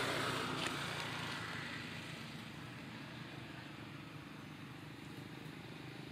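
Low, steady motor-vehicle engine hum, loudest at first and fading over the first few seconds to a steady background level.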